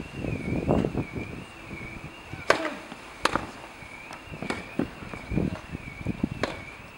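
Tennis rally: a ball hit back and forth with rackets, sharp pops a second or two apart, four of them from about two and a half seconds in. A faint high warbling tone wavers in the background.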